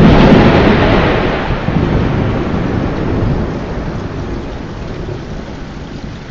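Thunder from a close lightning strike: a sudden loud crack at the very start that rolls into a rumble, slowly dying away over about six seconds, over steady rain.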